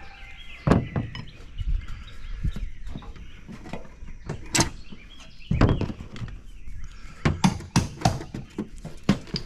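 Irregular knocks, clicks and scrapes of hand work on a mobile-home gutter fixed to the house with staples, as the gutter and its staples are pried and pulled loose.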